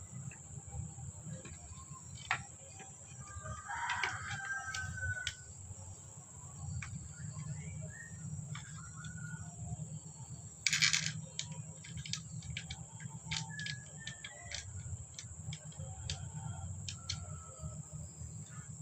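Small clicks and knocks of an air rifle being handled and worked on, over a steady low hum, with a short loud burst of noise about eleven seconds in. A bird calls about four seconds in.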